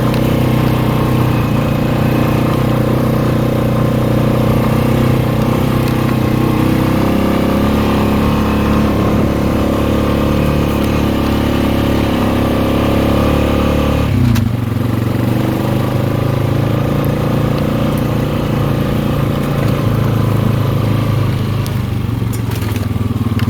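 ATV (four-wheeler) engine running steadily while being ridden. Its note drops about two-thirds of the way through as the throttle eases, then carries on at a lower, steady pitch.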